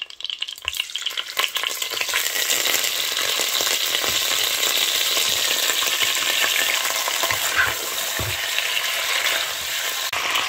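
Chicken pieces frying in hot oil in a pot: scattered crackles at first, thickening within about two seconds into a steady sizzle.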